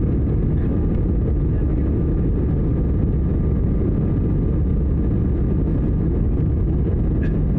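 Jet airliner's engines and airflow heard inside the passenger cabin during the climb after takeoff: a steady, deep rumble with a faint steady whine above it.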